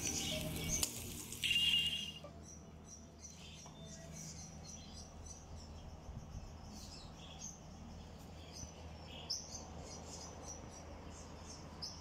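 Small birds chirping in short, high calls, scattered over a faint steady outdoor background. The tail of background music fades out about two seconds in.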